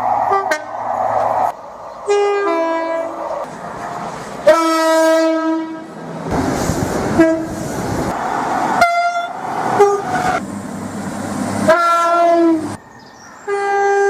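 A rapid string of train horn blasts from different locomotives, cut one after another. Several are two-tone calls, a higher note then a lower one, and some are single long notes. Between them comes the hiss and rumble of trains running.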